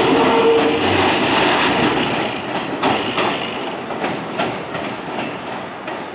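New York City Subway 7-line train running on elevated track and moving away, its wheels clacking over rail joints as its rumble fades. A short steady whine stops within the first second.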